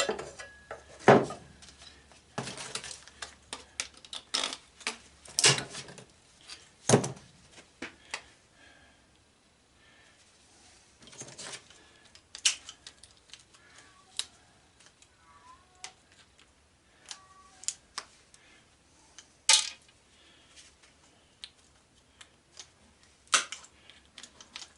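Irregular clicks, clinks and a few sharper knocks of hand tools and small metal parts being handled while screws and an aluminum heat sink are taken off a circuit board.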